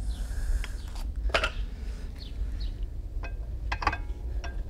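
Scattered light metallic clicks and clinks of a brake pad being handled and slid into a Brembo brake caliper, over a low steady rumble.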